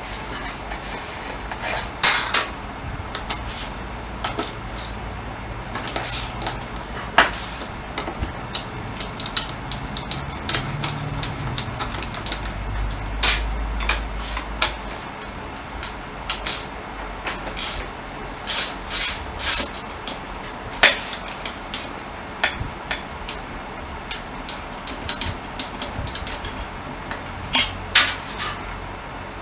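Metal hand tools and small engine parts clinking and knocking at irregular intervals while a Honda Dio scooter engine is taken apart, with the loudest clank about two seconds in.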